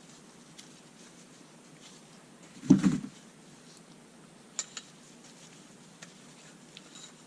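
Metal parts being handled on a bench: a short clatter of knocks nearly three seconds in, then a few light clicks and clinks.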